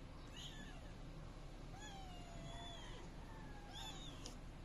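Kitten mewing: three high calls, a short one near the start, a longer one in the middle that dips in pitch as it ends, and another short one near the end.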